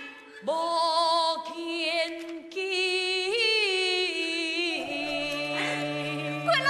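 Taiwanese opera (gezaixi) singing: one voice holds long, wavering notes of a sung line, with the pitch lifting about three seconds in. A lower held note joins near the five-second mark.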